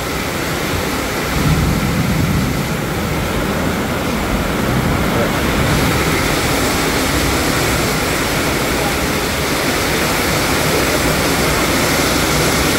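Heavy rain pouring down in a steady, loud roar, with a brief low swell about a second and a half in.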